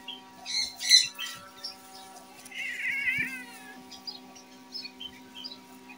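An injured calico cat gives one short, wavering, high-pitched cry while her wounds are handled. It comes a moment after a couple of sharp rustles from a plastic glove about a second in.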